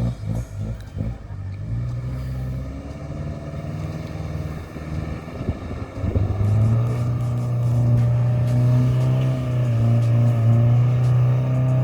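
Off-road 4x4's engine running unevenly, then revving up about six seconds in and holding steady at high revs.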